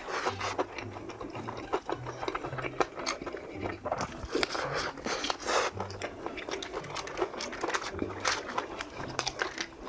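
Crisp fried chicken being bitten and chewed close to the microphone, a run of irregular crunches, with a light background-music bass line under it.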